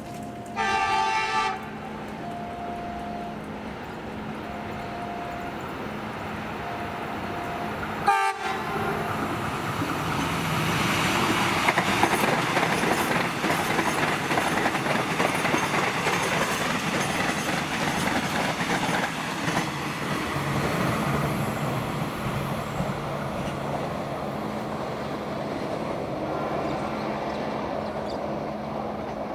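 KRL Commuter Line electric multiple unit sounding its horn for about a second, with a second short toot about eight seconds in. Then the train's wheels pass over the rails: a clickety-clack rumble that swells, holds for several seconds and slowly fades.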